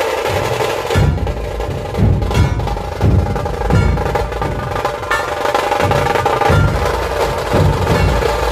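Dhol-tasha ensemble playing loud: massed dhol barrel drums beating a heavy rhythm over a continuous rattling roll of tasha drums.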